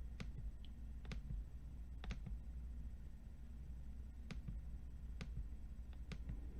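Sparse, irregular clicks of computer input, about eight over several seconds, over a low steady hum.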